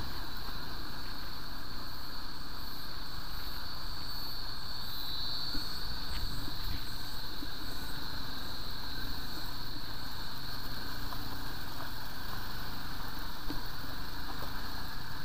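Motorcycles riding slowly over a rough dirt trail: steady engine and riding noise, with a couple of sharp knocks about five and a half seconds in and near the end.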